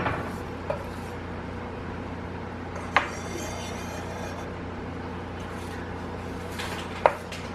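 Chef's knife tapping on a bamboo cutting board while cutting the seeds out of a halved jalapeño: a few sharp taps, the loudest about three seconds in and near the end, over a steady low hum.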